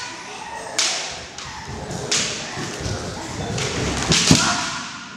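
Kendo bout: bamboo shinai clashing and striking, bare feet stamping on a wooden floor, and the fighters' shouts. Several sharp hits, the loudest about four seconds in.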